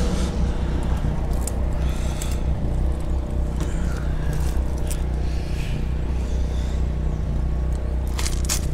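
Portable generator running with a steady low hum. A few light scrapes and clicks near the end.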